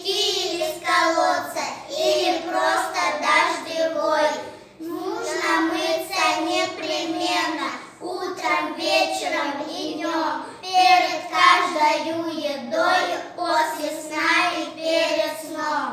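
A child's voice singing a song in phrases, with brief breaths between lines.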